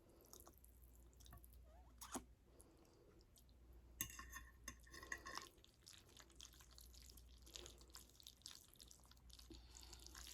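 Faint wet mouth sounds of someone chewing ramen noodles close to the microphone, with soft clicks throughout and a sharper smack about four seconds in.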